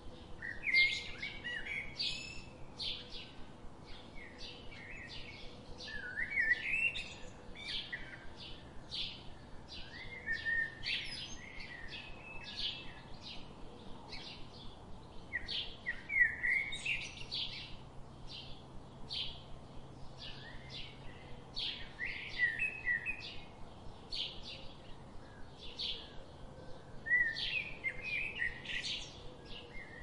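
Small songbirds chirping: a steady stream of short, high chip notes from several birds, with brief warbled phrases every few seconds.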